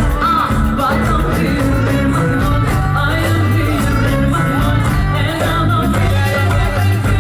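Live band playing amplified music, with a melody line carried over a steady bass.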